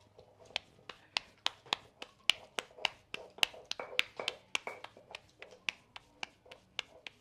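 Hands patting corn masa dough into gorditas: sharp, evenly paced slaps, about three to four a second.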